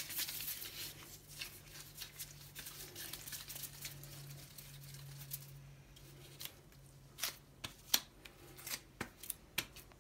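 Disposable-gloved hands rolling and pressing soft rice-flour mochi dough, making faint rubbing and sticky crackling sounds, with a run of sharper clicks in the second half.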